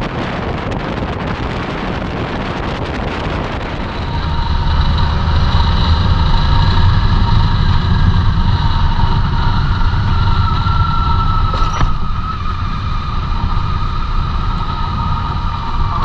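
BMW K1600GTL touring motorcycle's inline-six engine running as the bike rides. It starts with a rushing wind noise, and from about four seconds in a louder low hum with steady high whines takes over.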